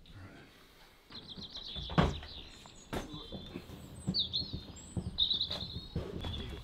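Small birds chirping and trilling over and over, with a single thump about two seconds in and a few lighter knocks after it.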